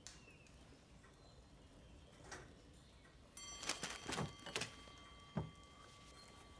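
Quiet room tone with a few soft clicks and knocks, most of them in the second half. A faint, high, steady tone comes in about halfway through and holds.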